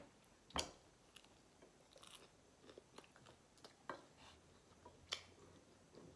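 Quiet close-up eating sounds: chewing of creamy alfredo pasta, with a few short wet mouth clicks, the sharpest a little over half a second in and others about four and five seconds in.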